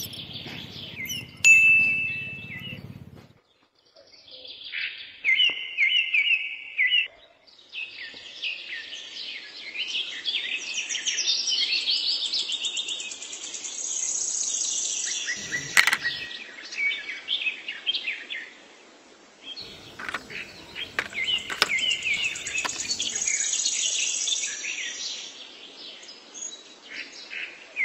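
Birds chirping and singing in many short, quick calls, with a few sharp clicks in between.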